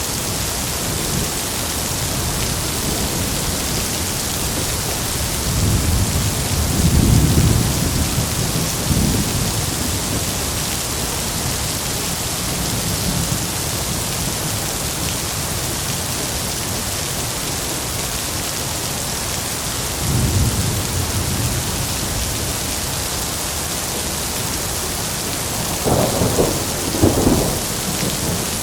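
Heavy rain falling in a steady hiss, with rolling thunder: a long low rumble about six seconds in lasting a few seconds, a shorter rumble around twenty seconds, and a sharper, closer crack of thunder in two bursts near the end.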